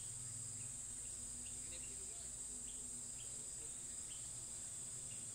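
Steady, high-pitched drone of forest insects, with scattered short chirps over it.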